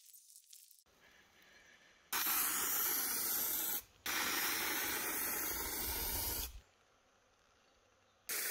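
Aerosol can of rust remover spraying in long hissing blasts. The first starts about two seconds in and lasts under two seconds. After a brief break a longer blast follows, and a third starts near the end.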